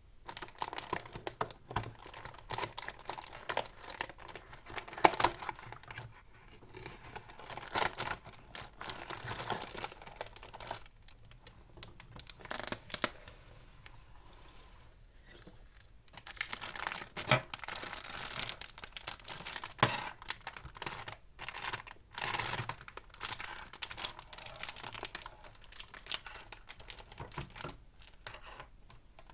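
Packaging being unwrapped and handled: irregular crinkling, rustling and tearing with small clicks, in two long stretches with a quieter pause in the middle.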